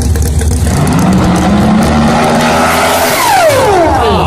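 Supercharged Hemi V8 of a 1970 Camaro drag car running hard down the strip. Its engine note rises in pitch, then several falling whines follow about three seconds in, over a steady low rumble.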